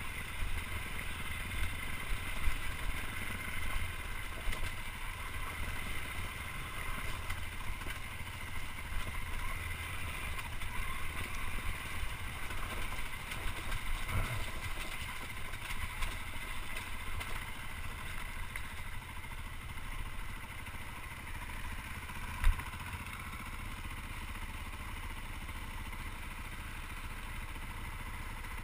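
Dirt bike engine running at low speed over rocky ground, heard from a helmet-mounted camera, with occasional knocks and one sharp knock about two-thirds through. Near the end it settles to a quieter, steady idle as the bike stops.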